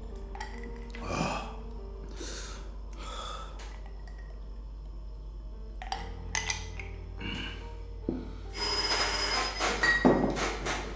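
A bell-like ringing, like a telephone bell, for about a second and a half near the end, ending in a sharp knock. Before it, soft background music with a few short noisy breaths or gulps.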